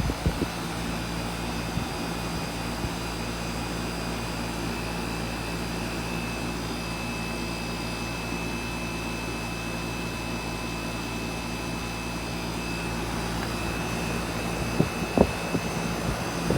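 1980 Miller 3-ton air conditioner running steadily: a constant hum with a few fixed tones over steady fan noise, with a handful of brief knocks near the end.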